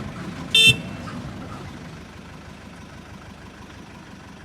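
A short, single toot of a truck horn about half a second in, over the low, steady running of the Tata 912 tipper's diesel engine, which slowly grows fainter.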